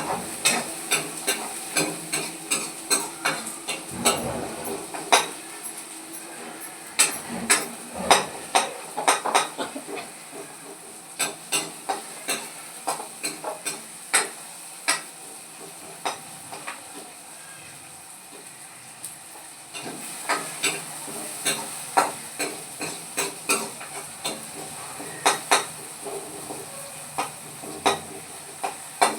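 Green beans and potatoes sizzling in a pan while a spoon stirs them. The spoon taps and scrapes the pan in irregular runs, with a short lull about two-thirds of the way through.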